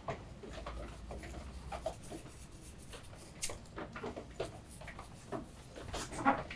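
Gloved hands rubbing sauce and seasoning over the skin of a whole sturgeon on a wooden board: soft rubbing and handling noises with scattered short taps and clicks.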